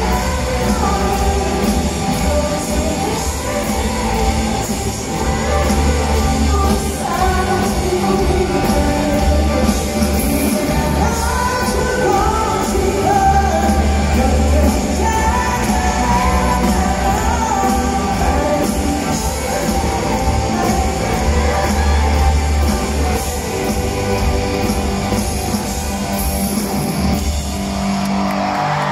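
Live rock band playing in a large hall, recorded from the audience: electric guitars, drums and bass under a sung vocal.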